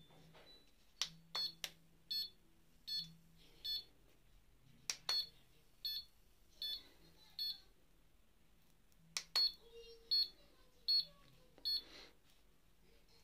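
Handheld mini HIFU facial device beeping in a steady rhythm, one short high beep about every three-quarters of a second as it fires its shots against the face, with a short break about two-thirds of the way through. A few sharp clicks stand out among the beeps.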